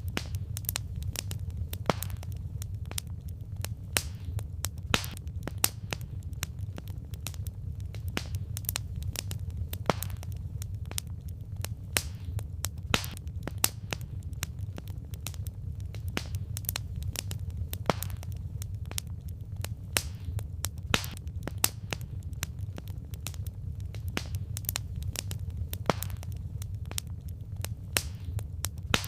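Burning firewood crackling: irregular sharp pops and snaps, several a second, over a steady low rumble of the fire.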